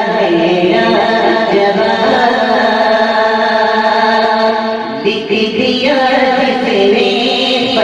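A man's voice singing devotional Urdu verse (a naat) into a microphone in a slow, drawn-out melody, holding long wavering notes. About five seconds in, one phrase ends and a new one begins with a rising glide.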